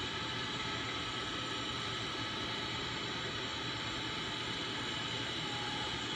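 Minute Key kiosk's key-cutting machine running: a steady whirring hiss with a few faint steady high tones.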